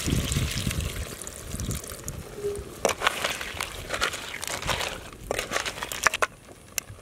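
Tamarind water poured from a steel pot into a clay pot of crab curry, splashing for about the first two seconds. Then a wooden-handled ladle stirs the crab pieces, with a run of scraping and clattering strokes against the clay pot that stop about six seconds in.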